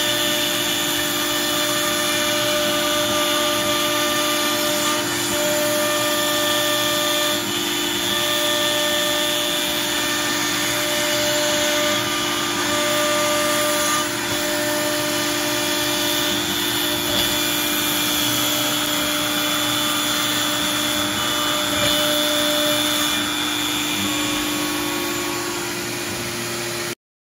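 CNC router spindle running steadily while its bit mills cam clamp profiles in 1/2-inch MDF, with a dust-collection vacuum running through the dust shoe. Higher tones in the cutting noise come and go every second or two as the bit moves through the cut. The sound cuts off suddenly near the end.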